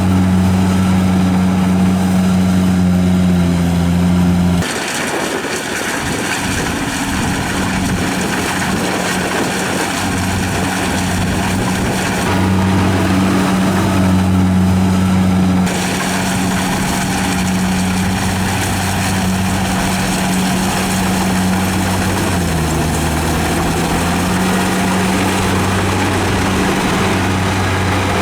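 Engine of a rice harvesting machine running steadily under load, a constant low hum with mechanical clatter and noise over it. The sound changes abruptly about five seconds in and twice more later, as from one machine or position to another.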